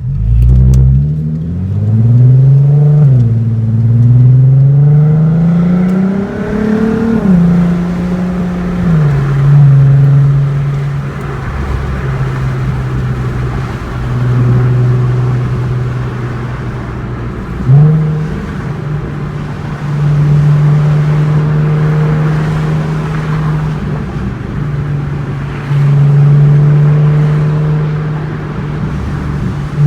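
2008 Volkswagen Golf R32's 3.2-litre VR6 engine pulling away hard: revs climb, drop at a gear change about 3 seconds in, climb again and drop at a second change around 7 seconds. It then runs at a steady, moderate speed, with a short sharp rise in revs about 18 seconds in.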